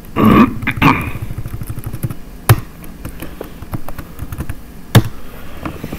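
Computer keyboard keystrokes, a scatter of light taps as text is edited, with two sharp, louder key clicks about two and a half seconds apart.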